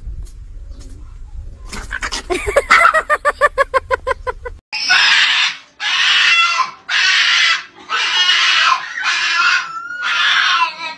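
A small dog yipping rapidly, about six yips a second. Then a Boston terrier screaming in long, hoarse cries, roughly one a second, upset at being left behind at the door.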